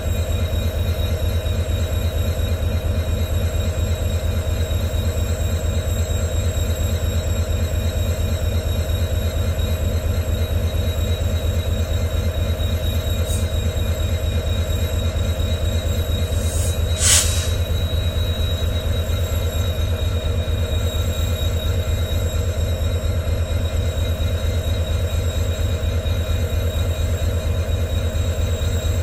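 EMD WDG4 diesel locomotive's 16-cylinder two-stroke 710G3B engine idling with a steady, deep hum and fine rapid pulsing. A short burst of noise about two-thirds of the way through.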